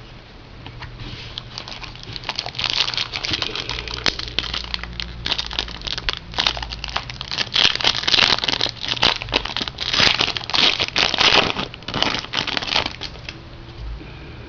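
Plastic trading-card pack wrapper crinkling and tearing as a pack is opened: a dense run of crackles that starts about a second in and stops shortly before the end.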